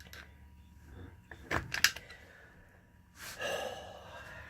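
A few sharp metallic clicks of screwdrivers and pins working the Spartan Locker's parts, about a second and a half in, then a short breathy gasp or exhale from the worker near the end.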